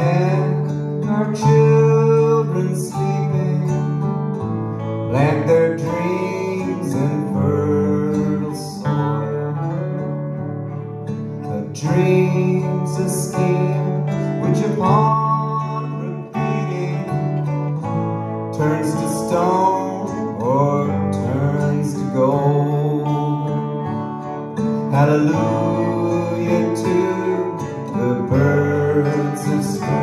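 Live song played by a trio on acoustic guitar, electric guitar and bowed cello.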